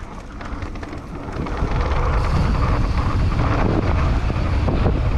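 Wind rushing over the microphone and knobby mountain-bike tyres rolling fast over a dirt singletrack on a descent. The noise builds over the first couple of seconds, then holds steady.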